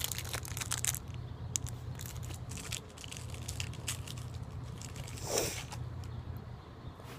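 Plastic wrapper of a fun-size Almond Joy candy bar crinkling and tearing as it is opened by hand, a run of sharp crackles. About five seconds in comes one louder, short rush of noise.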